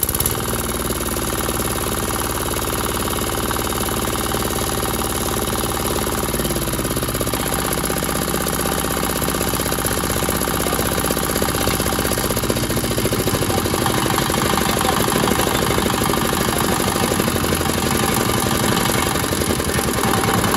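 8 HP '180 model' Chinese single-cylinder diesel engine running steadily just after starting, with its speed shifting about six seconds in and again around thirteen seconds in. The seller says it sounds like a new engine.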